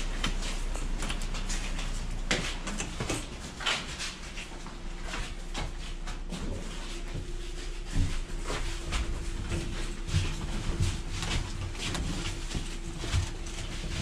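Footsteps, scuffs and knocks of several people carrying bags through a door and into an elevator, with one sharp thump about halfway through. From about four seconds in, a steady low hum runs underneath.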